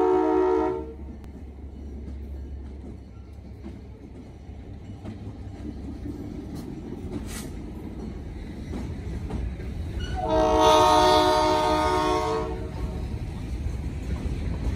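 Ellis & Eastern diesel locomotives passing a road crossing. A multi-note air horn sounds until about a second in, then the engines and wheels rumble on the rails. The horn sounds again for about two seconds, about ten seconds in, as loaded covered hopper cars begin rolling past. The horn blasts are the crossing warning.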